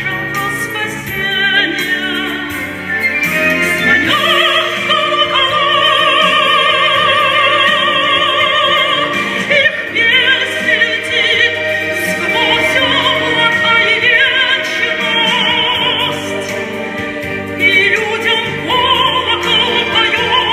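A woman singing a song in a classical style, holding long notes with a wide vibrato, over instrumental accompaniment.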